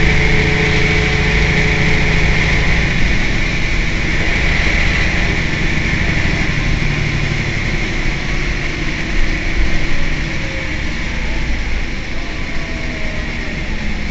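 Mercedes-Benz O 405 N city bus's rear engine idling steadily while the bus stands still, with a steady hiss above the low engine note. It grows slightly quieter in the second half.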